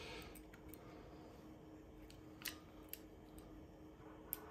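Faint light metallic clicks of a pistol's recoil spring and guide rod being worked into the slide by hand, a handful of scattered clicks over a faint steady hum.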